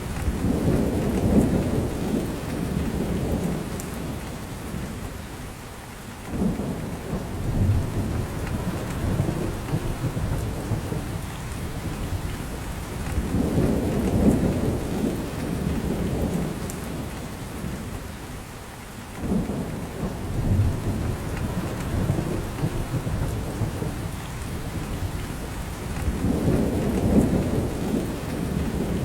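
Rain falling on a spruce forest and dripping from the branches: a steady patter under deep swells that build and fade several times. The same pattern of swells recurs about every 13 seconds.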